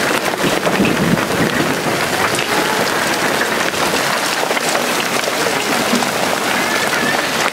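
Hail and heavy rain coming down hard: a dense, steady hiss full of small, sharp ticks of hailstones striking.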